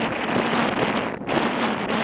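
Wind rushing over the microphone of a moving motorcycle, with the bike's engine and road noise underneath; a brief lull comes just past a second in.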